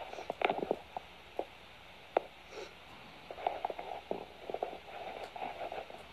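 Puppies play-wrestling, heard through a phone's small speaker: scattered short scuffling noises, small grunts and clicks in irregular clusters, with one sharp click about two seconds in.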